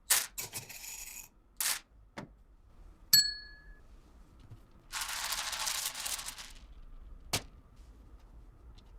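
Small items being handled and packed: a few sharp clicks and taps, a short bright ding about three seconds in, and about a second and a half of rustling around five seconds in.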